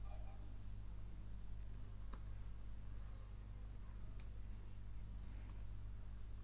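Faint computer keyboard keystrokes, a few scattered key presses, over a steady low electrical hum.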